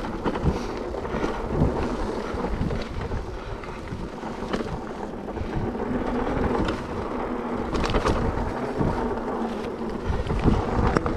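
Trek Powerfly full-suspension electric mountain bike rolling down a dirt singletrack: a steady rumble of tyres on dirt and wind buffeting the microphone, with scattered clicks and knocks from the bike over bumps.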